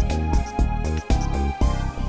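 Background music: an instrumental track with a pulsing bass beat and pitched melody notes.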